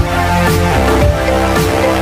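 Electronic background music with a steady beat, deep bass and a synth line moving in stepped notes.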